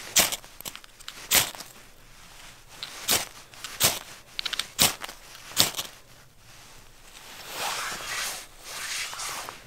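Six sharp knocks at irregular intervals, with a quick rattle of small clicks between them, then a rustling swish near the end.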